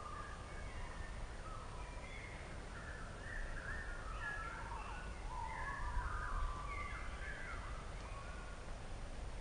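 Birds singing and calling, many short chirping notes overlapping, some sliding up and some down in pitch, busiest in the middle, over a steady low rumble.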